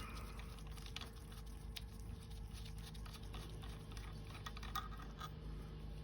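Faint, scattered light clicks and taps from small metal parts and tools being handled, over a steady low background hum.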